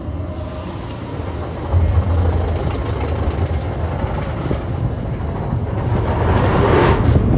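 Expedition Everest roller coaster train running along its track: a steady rumble with rushing air noise, growing louder near the end.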